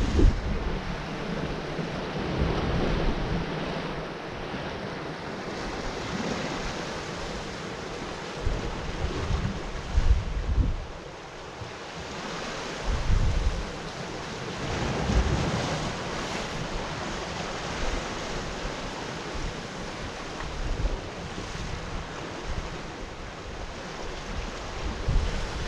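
Sea waves washing against a rocky shore, swelling and easing every several seconds, with gusting wind buffeting the microphone in low rumbles.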